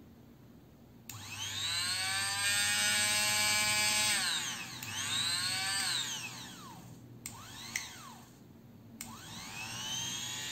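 The motor of a Fakir electric hand blender, opened up on the bench, is switched on and off several times. Each time it rises in pitch as it spins up and winds down when released: three longer runs, with two quick blips between the second and third. The repaired motor is running without trouble.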